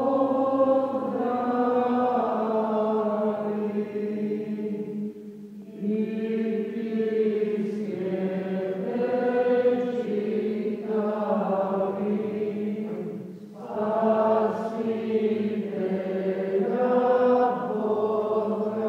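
A congregation singing a slow hymn together in long sustained phrases, pausing briefly twice, about five and thirteen seconds in.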